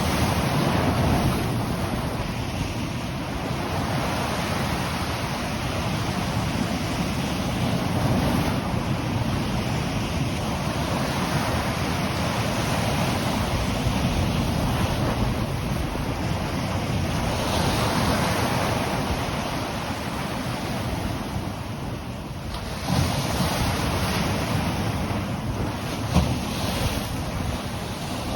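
Ocean surf breaking on the shore in a continuous wash that swells and eases, with wind buffeting the microphone. A louder surge comes in about three quarters of the way through.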